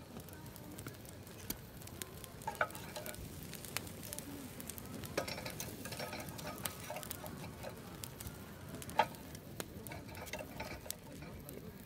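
Wood fire crackling in a small stainless-steel camp wood stove, with irregular sharp clicks and light knocks as sticks of firewood are fed into its firebox.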